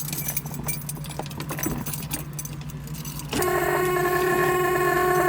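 Car keys jingling at the ignition, then a little over three seconds in a steady, louder sound sets in as the key is turned in the 1973 Pontiac Firebird Esprit.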